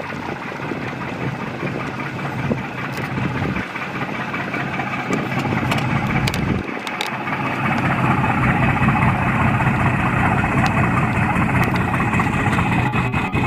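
Twin diesel engines of the 20 m patrol boat CL-108 Aoi running at low speed while manoeuvring off the pier, a steady engine hum that grows louder about eight seconds in.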